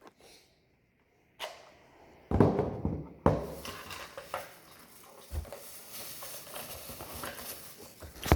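Handling noises with no motor running: a light knock, a louder rustling clatter, and a sharp click a few seconds in, then a steady hiss with a few small knocks.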